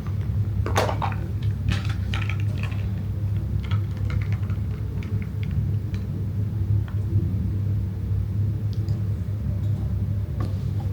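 Ice being crunched between the teeth close to the microphone: irregular sharp crackles, thickest in the first few seconds and then sparser, over a steady low hum.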